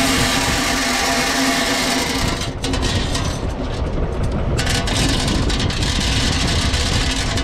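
Türk Fiat 480 tractor's three-cylinder diesel engine running steadily, with a loud high hiss over it that breaks off briefly about two and a half seconds in.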